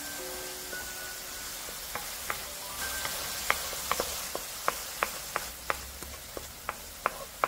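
Chopped kimchi sizzling as it is stir-fried in a nonstick wok, with a wooden spatula clacking against the pan a couple of times a second from about two seconds in. Soft background music fades out in the first second.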